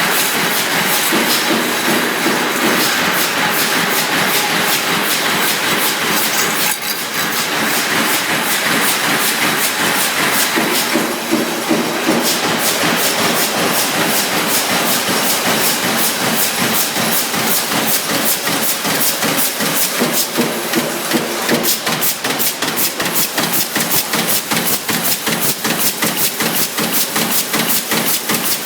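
CNC sheet-feed press line running: quick, evenly repeated press strokes, several a second, over a steady hiss of air.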